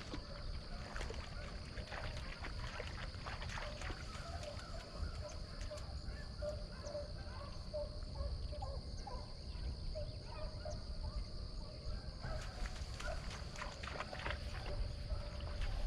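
Hounds baying and yelping in the distance on a deer drive, in short broken runs of notes, over a steady high-pitched drone of insects.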